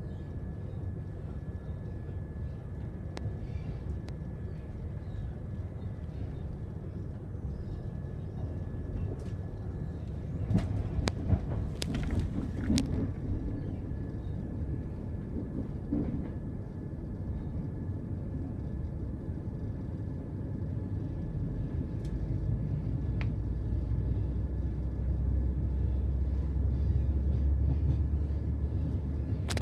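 Running noise of a passenger train heard from inside the carriage: a steady low rumble with a faint steady whine above it. A cluster of sharp clacks comes about ten to thirteen seconds in, and the rumble grows louder over the last third.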